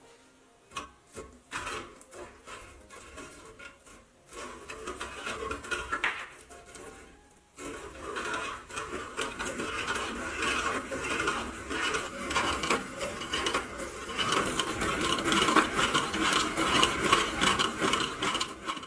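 Restored grain grinder grinding grain: a dense, gritty rasping. It starts after a few scattered clicks about four seconds in, stops briefly, then runs on, growing louder near the end.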